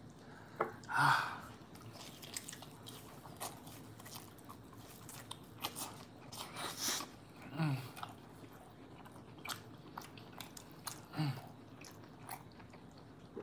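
Close-miked biting and chewing of a grilled ribeye steak eaten by hand: wet, smacking mouth sounds with scattered small clicks.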